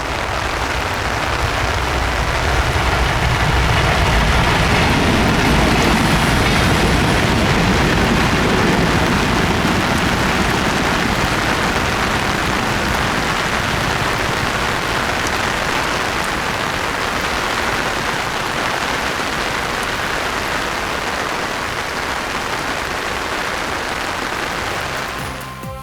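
Electric train running past a level crossing, loudest a few seconds in with a deep rumble, then fading slowly, with steady rain hissing throughout.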